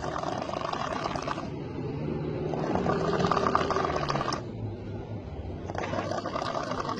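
A person snoring heavily, with rasping, rattling breaths in and out one after another, the loudest about three seconds in.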